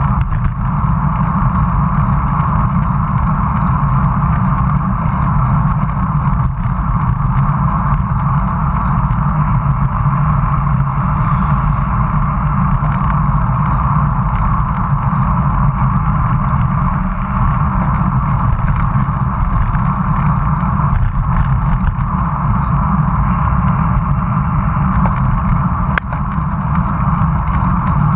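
Steady wind rush and road rumble on the microphone of a camera mounted on a moving road bike, with one sharp click near the end.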